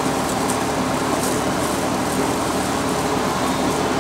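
Steady mechanical hum with a low drone, with faint, irregular light scrapes of resin being stirred in a plastic cup.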